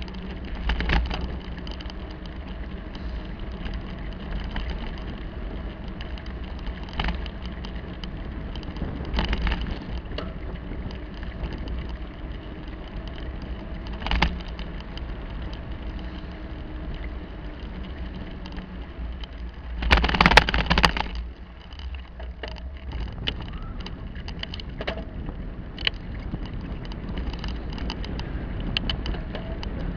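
Bicycle ridden over paving blocks: a steady rumble and rattle from the tyres and frame, with sharp knocks over bumps and one loud, rough rattling stretch about two-thirds of the way through.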